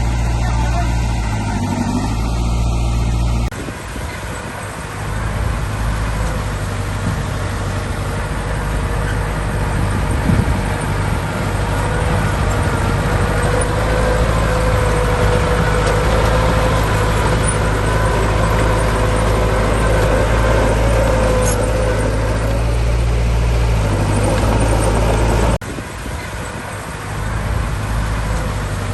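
Heavy diesel machinery engines running with a steady low drone, joined through the middle by a whine that rises a little in pitch and holds. The sound changes abruptly twice, once a few seconds in and once near the end.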